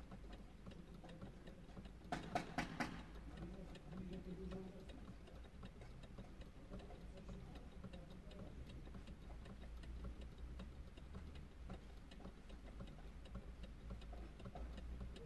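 Faint, steady, even ticking over a low hum, with a quick run of about five sharp clicks about two seconds in.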